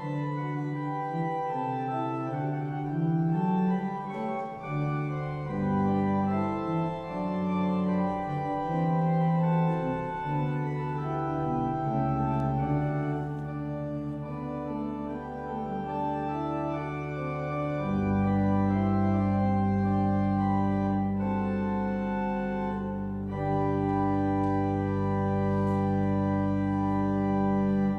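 Church organ playing slow sustained chords. A deep bass pedal note enters about two-thirds of the way through, under a final chord held to the end.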